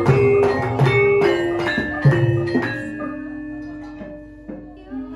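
Javanese gamelan playing: bronze metallophones and kettle gongs struck in a run of ringing notes with low kendang drum strokes, a little over three strokes a second. The strokes slow and grow quieter after about three seconds, leaving a few notes ringing out.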